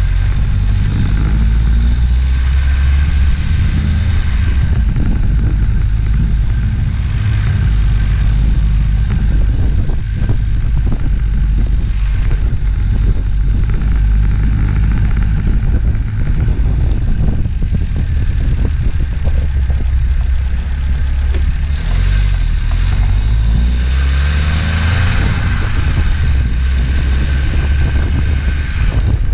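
A 1978 MGB's four-cylinder engine running under way. The revs climb shortly after the start and again near the end, as it accelerates through the gears.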